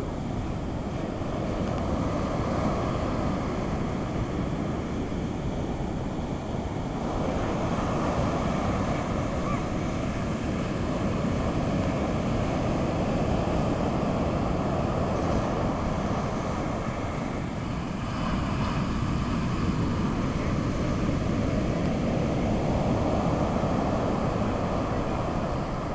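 Ocean surf breaking and washing up the beach in a continuous rush that swells and eases as the waves come in, with wind rumbling on the microphone.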